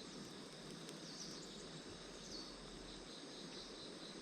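Faint outdoor ambience: insects trilling steadily, with a few short, faint high chirps.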